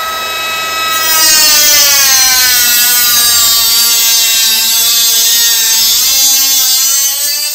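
Milwaukee M12 cordless compact cut-off tool cutting through aluminium LED profile. A high motor whine with a loud grinding hiss of the disc in the metal from about a second in. The whine sinks slowly under load, lifts again near the end, then stops.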